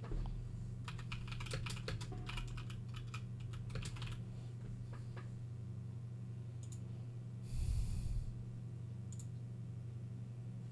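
Typing on a computer keyboard: a quick run of keystrokes for about three seconds, then a few scattered single clicks. A short rush of noise comes about three-quarters of the way through, and a steady low hum runs underneath.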